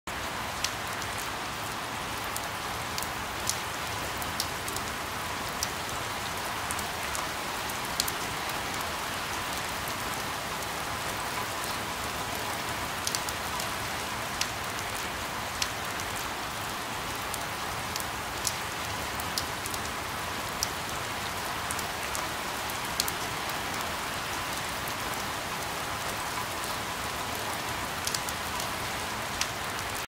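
Steady rain falling: an even hiss of many drops, with single close drops ticking sharply every second or so.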